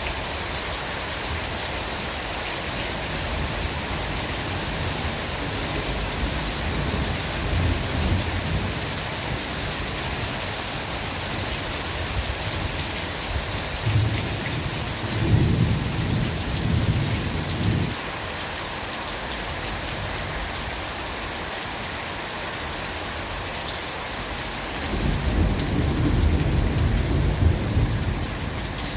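Steady rain falling in a forest, with low thunder rumbling three times: a few seconds in, again about halfway, and most strongly near the end.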